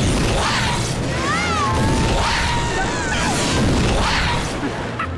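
Cartoon lightning-strike sound effects: a run of loud crackling electric blasts, with rising-and-falling zapping tones about a second and a half in.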